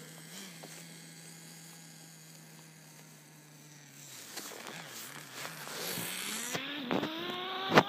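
Small nitro engine of a Redcat Tornado S30 RC buggy idling at a steady pitch, then revving in rising and falling whines over the last couple of seconds. A sharp loud knock comes just before the end.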